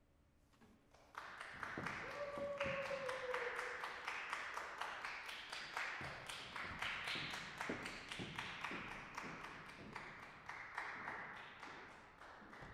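Audience applause in a concert hall, the individual claps distinct, starting about a second in and tapering off near the end. A brief falling tone sounds through it about two seconds in.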